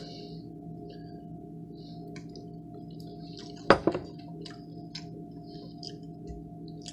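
A steady low hum made of several held tones, with faint small clicks and mouth sounds of someone chewing food. There is one short, louder sound a little under four seconds in.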